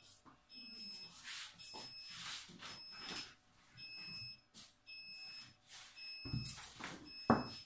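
An electronic alarm beeps repeatedly, one high-pitched beep about every second, with light knocks of glass bottles being set down on a table and a sharper knock near the end.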